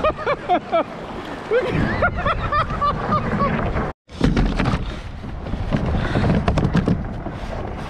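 A man's voice muttering in the first few seconds over water and wind on the microphone on a kayak; after an abrupt cut, a low rumble of wind buffeting the microphone and water around the hull, with scattered clicks and knocks of a fishing rod and gear being handled.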